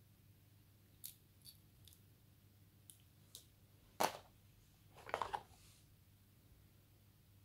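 Small handling noises from phone accessories: a few light plastic clicks, then a sharp knock about four seconds in as the earphones are set down on the table. About a second later comes a short rustle and clatter as a cable is taken out of the cardboard box.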